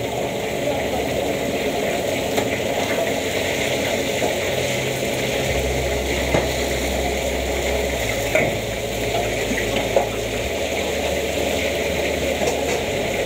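Food deep-frying in a large wok of hot oil, a steady sizzling crackle, with a metal ladle stirring and knocking in the wok now and then.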